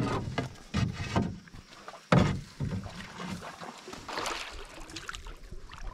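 Canoe being paddled off from the shore: a wooden paddle splashing in the water, with a few knocks against the canoe, the loudest about two seconds in, and water sloshing.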